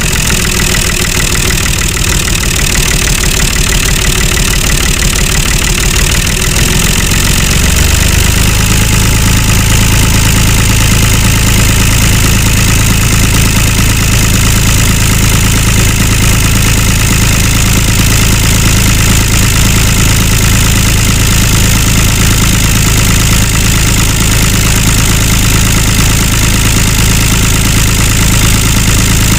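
Tractor engine running steadily at a low, even idle. About eight seconds in its note shifts and settles into a steadier hum.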